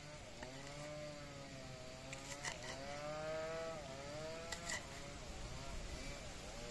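A few sharp knife strokes on a wooden board as red chillies are sliced, over a small engine running steadily, its pitch slowly rising and falling.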